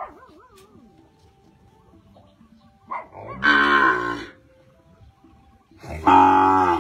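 Young zebu-type cattle mooing: two long, loud moos about three seconds apart, the first about three seconds in and the second near the end.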